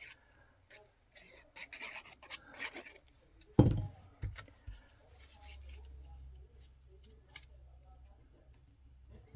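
Cardstock and paper being handled on a work table: light rustles and small clicks, with one loud low thump about three and a half seconds in, as if something was set down on the table or bumped it. A faint low hum follows.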